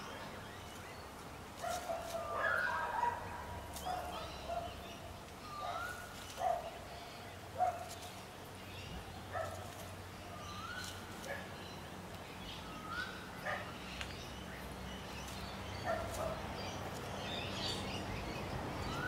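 Repeated short animal calls, each a quick rising note, coming about every one to two seconds, with scattered light clicks.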